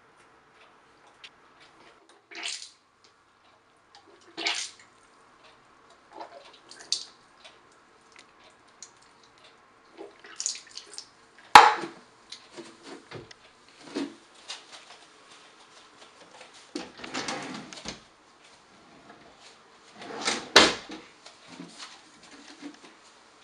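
A child's toothbrushing at a bathroom sink: short splashes of tap water and knocks and clicks of a toothbrush and toothpaste tube against the basin and counter, coming in separate bursts, the sharpest click about halfway through.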